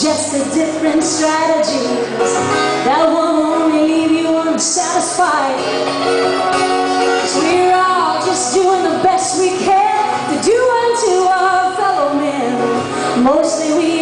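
A woman singing a folk song live, accompanied by acoustic guitars.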